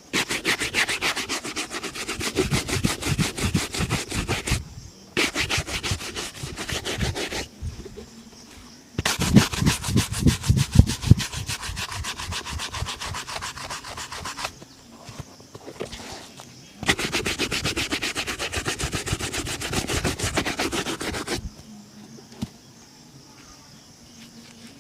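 Shoe being buffed by hand in fast back-and-forth rubbing strokes during a polish, in four runs with short pauses between them.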